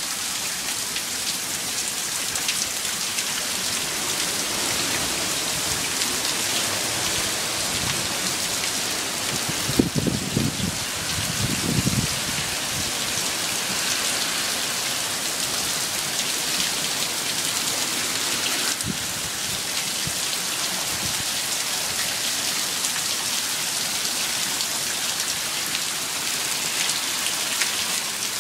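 Heavy, steady hurricane rain pouring down, a dense even hiss of falling water. A few brief low-pitched noises stand out about ten and twelve seconds in.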